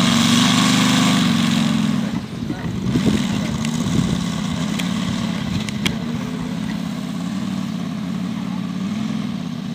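Moki 150 cc five-cylinder radial engine of a large-scale RC model plane running at low throttle while the model taxis, its pitch wavering slightly with small throttle changes. It is a little louder for the first two seconds, then settles lower.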